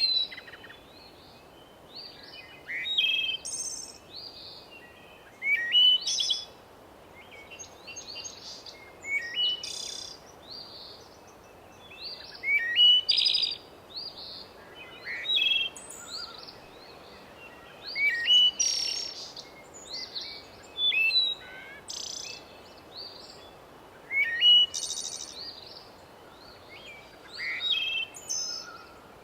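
Several songbirds singing: short phrases of rising and falling whistles every two to three seconds, over a faint steady hiss.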